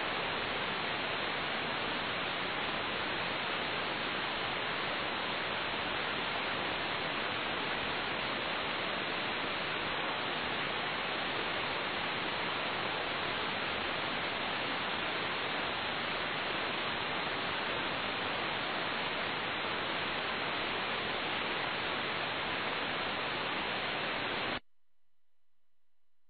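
Steady hiss of radio static in the gap between air traffic control calls, cutting off suddenly near the end.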